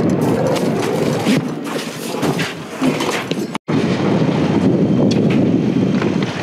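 Handheld camera moving about in a dust cloud: a dense rumbling noise with many knocks and rustles from the camera being jostled, cutting out completely for an instant about three and a half seconds in.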